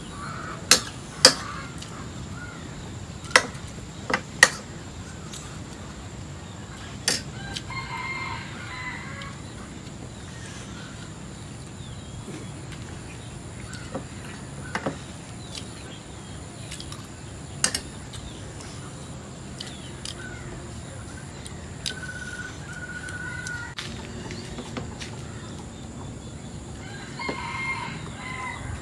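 Free-range village chickens (ayam kampung) crowing and clucking: a rooster crows about eight seconds in and again near the end. Several sharp clicks of dishware are heard, most of them in the first few seconds.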